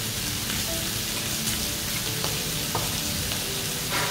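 Pork belly and pork neck sizzling steadily on a hot tabletop grill pan, with one brief knock just before the end.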